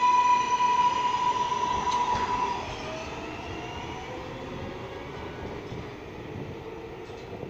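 R143 subway train pulling out: the traction motors give a steady high whine with several overtones over the rumble of wheels on rail. About two and a half seconds in, the whine drops away and the level falls as the last car goes by, leaving a fainter rumble with a low tone slowly sinking as the train moves off.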